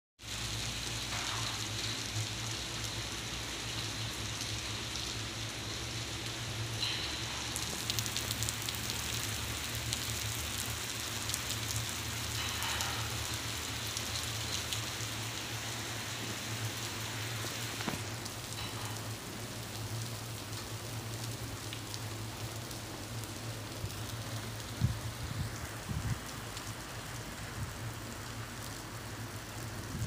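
Steady rain falling on a wet paved road and open ground: an even hiss, with a steady low hum underneath.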